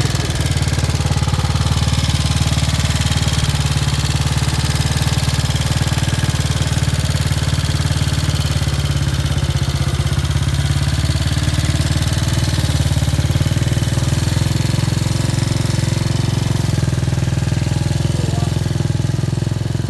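Vintage motorcycle engine running steadily without revving.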